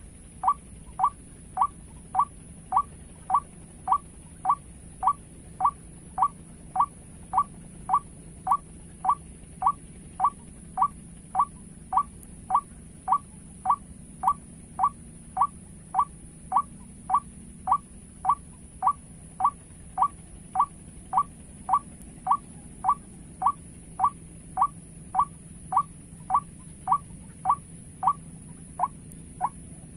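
White-breasted waterhen call played from a bird-trapping lure speaker: a short rising note repeated evenly, about twice a second, with a steady high whine underneath.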